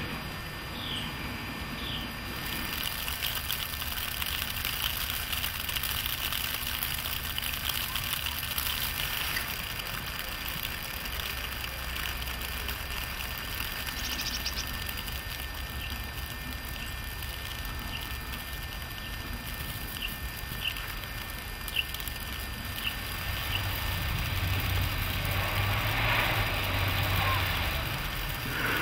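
Steady outdoor hiss with a few short, high chirps from a small bird. In the last few seconds a van's engine and tyres swell as it drives up a snow-covered road.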